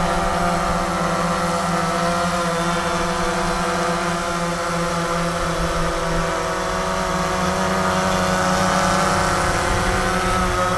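DJI Phantom 3 Professional quadcopter hovering close by, its four motors and propellers giving a steady, even buzz.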